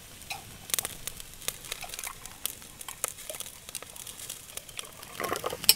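Metal spoon and fork clicking and scraping against cooked clam shells in irregular small clicks, with a louder clatter near the end.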